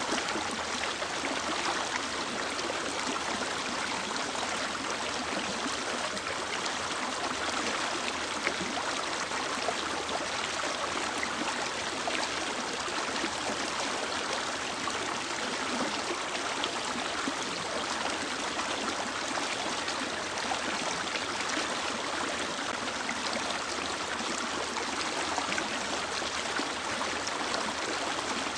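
Mountain river or stream flowing over rocks: a steady rushing and gurgling of running water that doesn't change.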